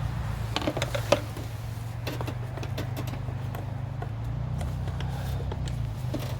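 Scattered light clicks and knocks of hands and tools on hoses and plastic engine parts, with one sharp click about a second in, over a steady low hum.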